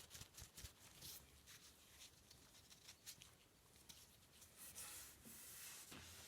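Faint rubbing and rustling of a tack cloth on a wooden surface, with a few soft clicks scattered through it.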